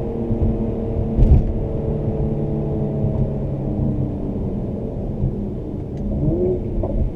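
2017 Mercedes-AMG C43's twin-turbo V6 and performance exhaust, heard from inside the cabin, running at steady revs with one sharp pop about a second in. Near the end the revs start to climb.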